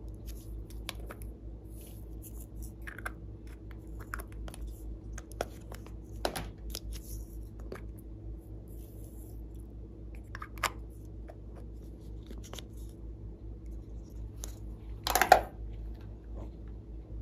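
Glossy slime being worked by hand, giving scattered small clicks and crackles, with a louder squelching crackle about fifteen seconds in.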